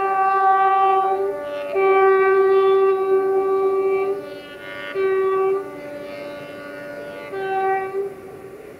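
Multi-tone air horn of a Romanian 060-DA (LDE2100) diesel-electric locomotive, sounded in a run of long and short blasts that switch between its tones like a short tune, with a last short blast near the end.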